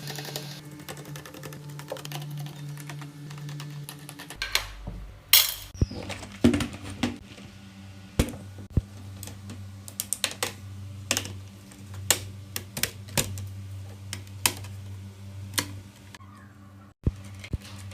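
Hands working on a computer: irregular clicks, taps and knocks, denser and louder from about four seconds in, over a low steady hum.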